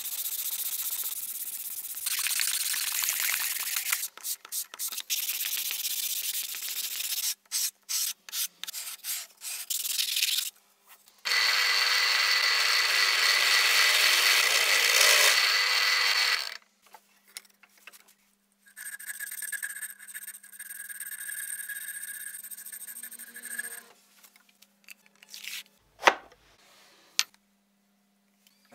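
A wooden workpiece being sanded by hand across a strip of sandpaper, first in a continuous rasp and then in separate back-and-forth strokes. Then a drill press runs steadily with a whine as the bit bores through an ash board. Later comes a shorter stretch of tool noise with a whine, and a single sharp knock near the end.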